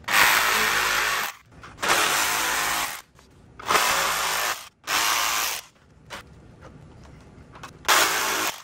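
A handheld power saw cutting through a plastic truck grille, run in five bursts of about a second each, with a pause of about two seconds before the last. It is cutting out the grille's centre section.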